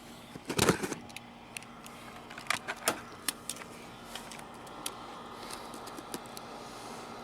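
Cardboard packaging being handled and cut open with a dull utility knife: a loud crackling rustle about half a second in, then a scatter of sharp clicks and scrapes, over a steady faint hum.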